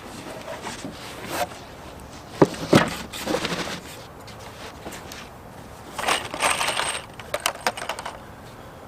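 Equipment being handled: two sharp knocks about two and a half and three seconds in, rustling about six seconds in, then a quick run of small clinks and clicks.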